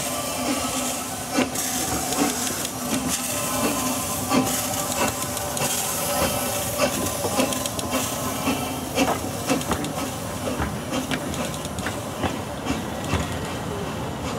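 Narrow-gauge 0-4-2T steam tank locomotive hissing steam as it moves off, then its wooden coaches passing close by with repeated clicks and knocks from the wheels on the rails.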